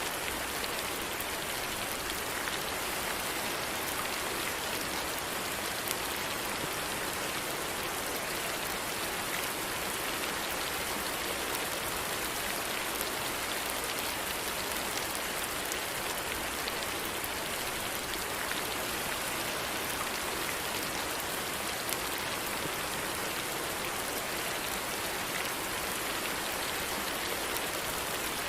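Steady rain falling, a continuous even hiss dotted with the fine patter of individual drops.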